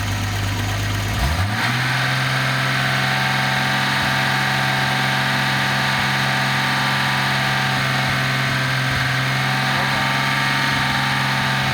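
Nissan 280ZX turbo's inline-six engine (L28ET) on a test stand, running at idle. About a second in it is raised to a faster idle and then holds there steadily while it warms up.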